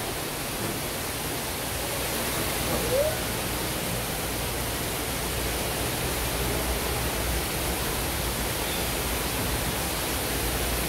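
Steady rushing background noise with a low hum underneath, and a brief rising sound about three seconds in.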